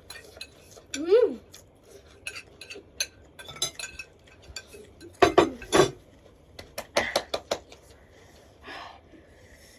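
Spoons clinking and scraping against dishes in many quick clicks while instant noodles are eaten fast. There is a short rising vocal cry about a second in, and two louder knocks a little after five seconds.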